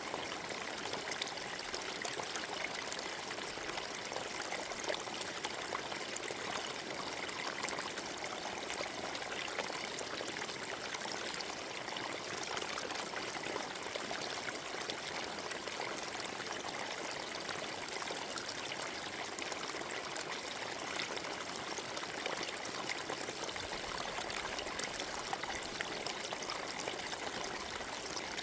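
Forest stream flowing: water running and trickling over stones in a steady, even babble.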